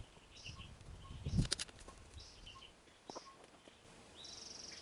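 Birds chirping in short high calls over a quiet outdoor background. A few faint clicks with a soft low thump come about a second and a half in.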